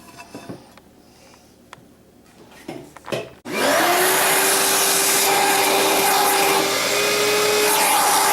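A few light handling knocks and clicks, then about three and a half seconds in a vacuum cleaner switches on. Its motor whine rises quickly and then holds a steady pitch over a loud rushing hiss, as the turntable is cleaned.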